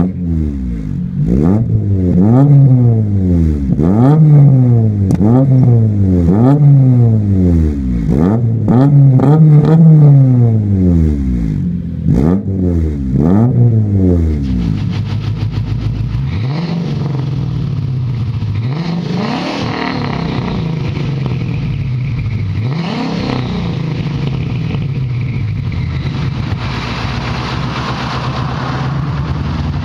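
Toyota Levin AE111's engine revved in place again and again, about ten quick rises and falls in pitch. About halfway through, a Ford Mustang's engine idling steadily, with a couple of light throttle blips.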